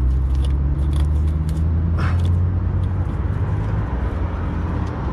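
A vehicle engine idling with a steady low hum, with a few light clicks and rustles as wiring under the truck is handled.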